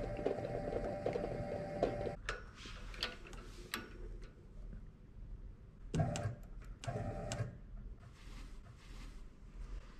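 Universal testing machine's crosshead drive running with a steady whine and fast ticking, cutting off about two seconds in. A few sharp metal clicks follow as the specimen is seated in the grips, then the drive runs twice more briefly, about a second apart, near the middle as the grips are brought together.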